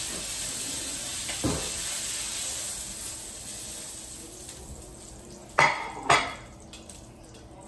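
Food sizzling in a hot pan, the hiss fading over the first few seconds, with a knock about a second and a half in and two sharp metallic clinks of kitchen utensils near the end.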